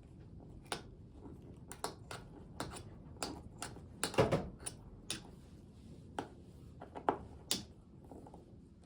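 Irregular small metal clicks and taps of a hand key and screws as screws are taken out of a motorcycle's fuel filler cap ring, with a slightly louder cluster about four seconds in.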